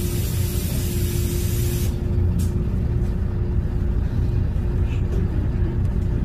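Cabin sound of a LiAZ 5292.22-01 city bus on the move, its MAN compressed-natural-gas engine and drivetrain giving a steady low rumble with a constant hum. A loud hiss stops abruptly about two seconds in.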